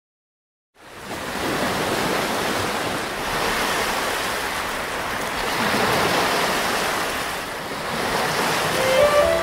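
Ocean surf breaking and washing up the shore, a steady rush of water that swells and eases, starting about a second in. A few violin notes come in right at the end.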